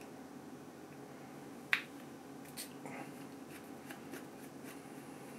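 Small metal clicks and ticks of a jeweller's flathead screwdriver working a tiny retaining screw out of an anamorphic lens barrel. One sharper click comes a little under two seconds in, followed by a scatter of fainter ticks.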